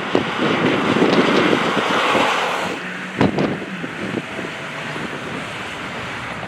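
Strong gusty wind buffeting the microphone with a loud rushing noise that eases about three seconds in.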